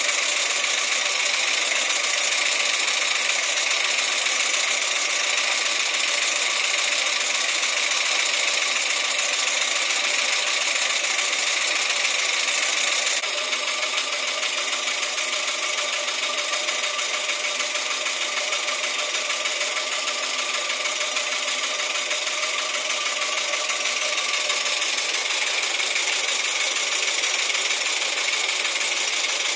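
PM Research No. 7 twin-cylinder model steam engine running steadily on steam from a copper boiler, with a strong high hiss of steam over the mechanism. The sound steps a little quieter about 13 seconds in.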